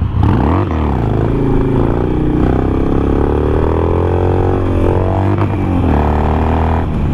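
2007 Harley-Davidson Sportster Nightster's 1200 cc V-twin running under way. The engine note climbs as it accelerates and drops back at the shifts, rising and falling several times.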